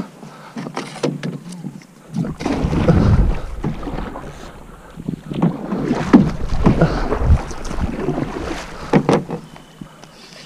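Water splashing and sloshing around a canoe as a hooked carp thrashes at the surface beside it, coming in uneven surges.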